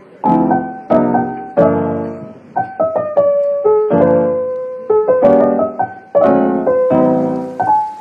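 Background piano music: chords and melody notes struck one after another, each left to ring and fade.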